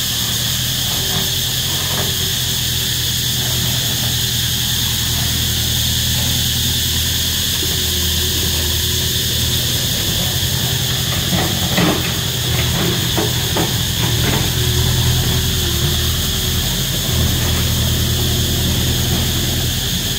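Cicadas calling loudly in a steady high drone over an engine running at a low, even pitch. A few sharp knocks come about twelve to fourteen seconds in.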